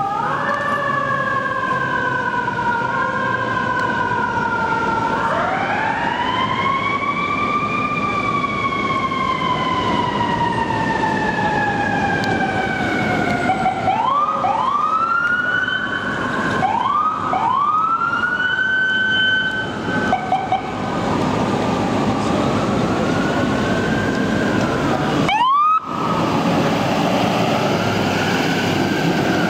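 Sirens of FDNY fire apparatus responding on a run. Long slow wails rise and fall, then a string of short rising whoops about halfway through. The sound cuts out for a moment near the end before another wail.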